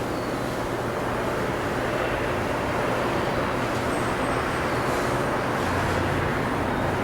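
Steady rumble and road noise of a vehicle driving, with a low hum that grows a little stronger near the end.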